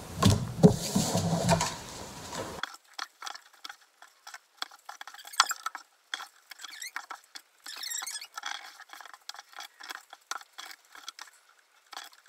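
Playing cards being dealt, flipped and laid down on a wooden table: a fast, irregular run of light taps, flicks and scrapes.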